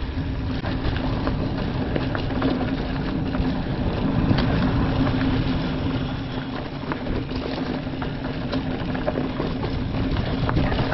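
Mountain bike rolling along a dirt trail: steady tyre and drivetrain noise with a constant hum and scattered rattles and clicks over bumps.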